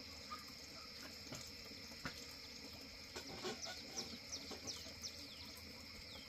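Faint outdoor ambience: small birds giving many short, quick falling chirps, busier in the second half, over a steady high insect drone, with a few soft clicks.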